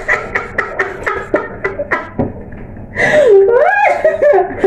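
A woman laughing, first in a quick run of short breathy pulses, then, about three seconds in, a louder laugh that swoops up and down in pitch.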